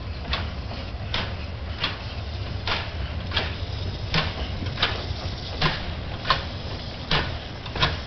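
A pair of narrow-gauge steam locomotives chuffing at a slow, even beat, roughly one exhaust beat every 0.7 seconds, over a steady low rumble as they move off slowly.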